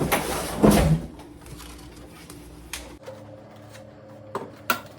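Handling knocks and clicks as a ring light is fitted onto its tripod stand. There is a heavy thump just under a second in, then a few light clicks and taps near the end.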